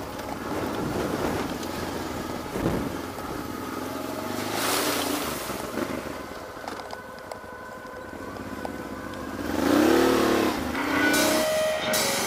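Honda motorcycle engine running and revving on a dirt track, its pitch rising and falling, with a louder rev about ten seconds in.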